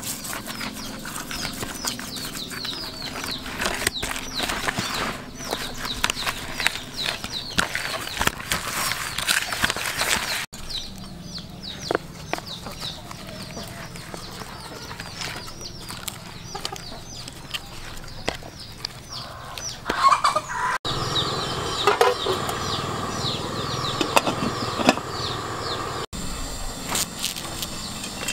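Small birds chirping busily in quick, repeated, falling notes, in two long stretches, over clicks and wet handling sounds of hands working a raw fish in a plastic basin.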